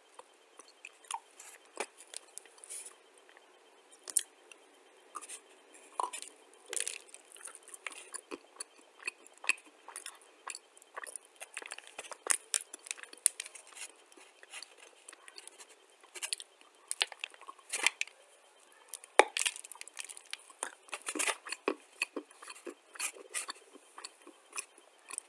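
Dry clay being bitten and chewed close to the microphone: irregular crisp crunches and clicks with no steady rhythm, the sharpest snap a little past the middle.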